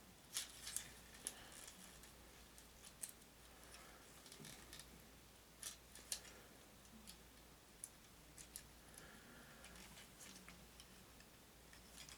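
Faint, scattered clicks and taps of a plastic transforming action figure being handled, as its sword blade is worked back into place.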